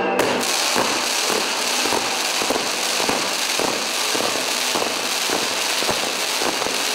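Fireworks on the Scoppio del Carro cart going off: a dense, continuous crackle of firecrackers and sharp bangs over the hiss of spark fountains.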